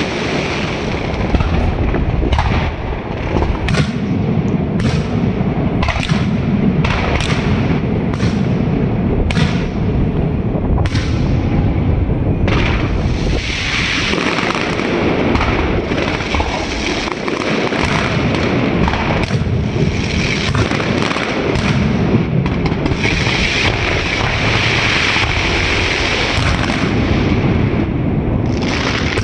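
Fireworks display: a quick run of sharp bursts, about one or two a second, then dense crackling that swells up twice in the second half.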